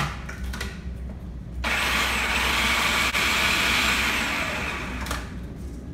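Food processor switched on about a second and a half in, its motor running for about three seconds as it grinds graham crackers, sugar and melted butter into fine crumbs, then winding down.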